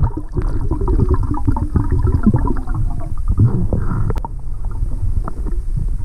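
Underwater recording of a hand sifting through sand and broken shell on the seabed: a low rumble of moving water with a dense run of small clicks and scrapes from grit and shell fragments.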